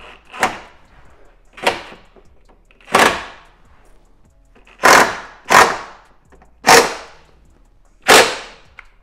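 Impact wrench fired in about seven short bursts, tightening the 12 mm bolt that holds a strut brace to the strut tower. The later bursts are louder.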